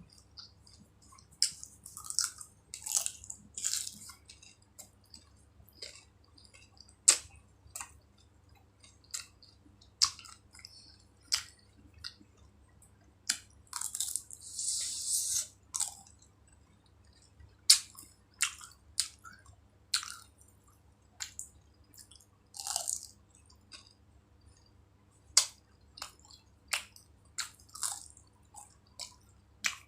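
Close-miked eating of fried Indian snacks, samosa and jalebi: irregular crisp bites and crunches with wet chewing between them, and a longer crackling spell in the middle.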